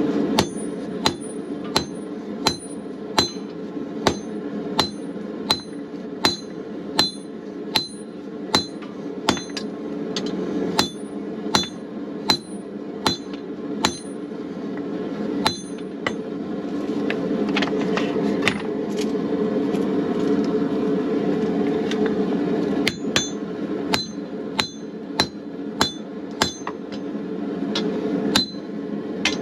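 Hand hammer striking hot steel on an anvil, about one and a half blows a second with a bright ring after each, the blows thinning out for a few seconds midway and then starting again. A steady rush from the gas forge's burner runs underneath.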